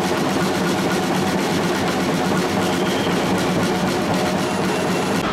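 A supporter's bass drum being struck with a padded mallet, amid loud, dense crowd noise.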